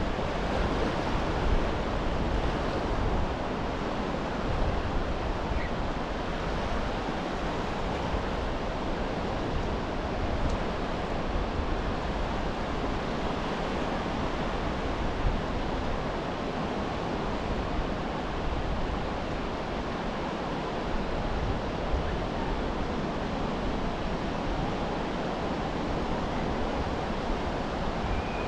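Surf washing onto a sandy beach: a steady, even wash of waves, with some wind rumble on the microphone.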